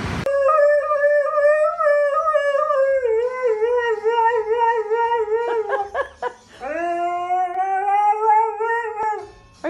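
A dog howling: one long, wavering howl, then after a brief break a second howl that rises in pitch and then wavers.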